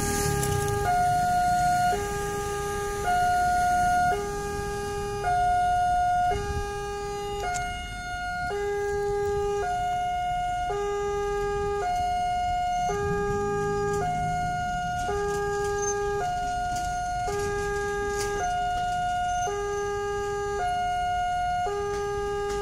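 Railway level-crossing warning alarm sounding two alternating tones, high then low, each held about a second and repeating steadily, as it does while the barriers are down for an approaching train.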